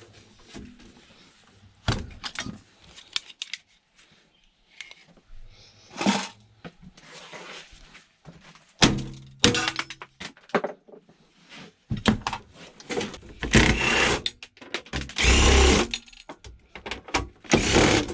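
Metal panels and parts of a coffee machine being taken apart for scrap: irregular knocks, clunks and clatter, with longer stretches of scraping and rattling near the end.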